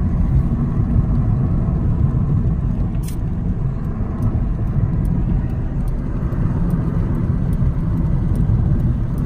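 Steady road and engine noise inside a moving car's cabin, mostly a low rumble, with a sharp click about three seconds in.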